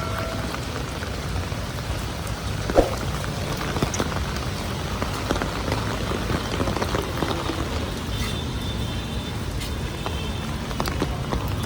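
Heavy rain falling steadily, with scattered sharp drips and one brief thump nearly three seconds in.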